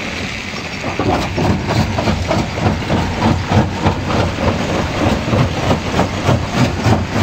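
Jaw crusher running and crushing stone: a steady low hum with a rhythmic clatter of rock breaking, about three pulses a second. It grows louder from about a second in.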